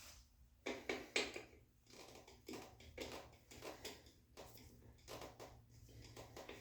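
Faint, irregular light clicks and taps of hardware and tools being handled while a motorcycle seat is fitted, about a dozen spread unevenly, with no steady rhythm.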